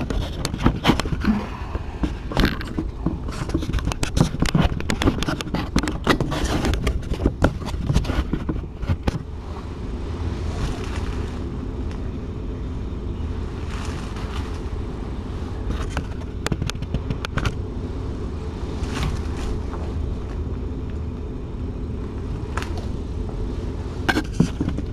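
Steady low hum with irregular clicks and knocks of handling close to the microphone, thickest in the first third and again near the end.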